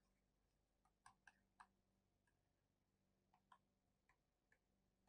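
Near silence with a few scattered faint ticks: a stylus tapping on a writing tablet as handwriting is written.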